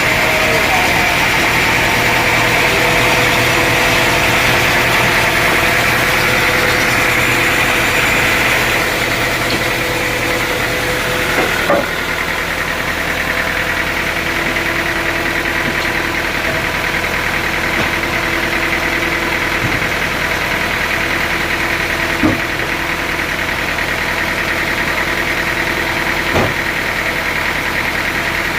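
Sawmill engine running steadily. About twelve seconds in its note drops a little, and a few single sharp knocks come later.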